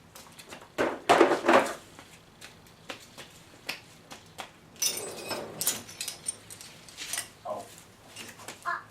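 Scattered knocks and clicks of things being handled, with two louder scraping or rustling bursts, about a second in and about five seconds in.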